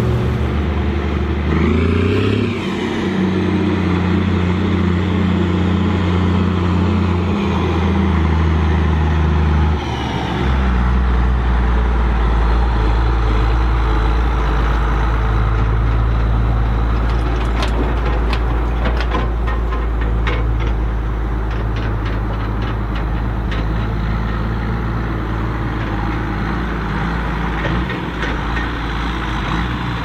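Heavy diesel farm machinery running steadily while maize is chopped. A machine's engine note rises briefly about two seconds in. About ten seconds in it gives way to the deep steady rumble of a Case 2294 tractor's turbocharged six-cylinder diesel, with a spell of sharp clicks in the middle.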